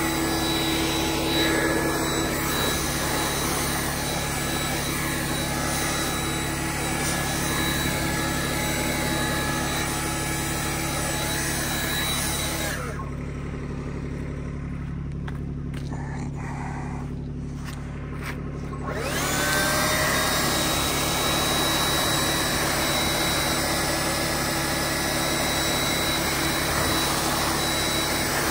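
Loader tractor's engine running steadily with a high whine over it. The whine and the upper sound drop away for about six seconds past the middle, then come back with a rising pitch as the machine revs up again.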